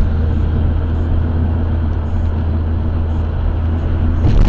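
Steady low drone of a car's engine and road noise, heard from inside the cabin.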